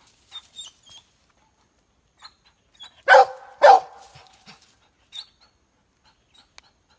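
Hunting dog barking twice in quick succession, about three seconds in, while holding a jaguar treed above it. Faint high chirps and small clicks are heard around the barks.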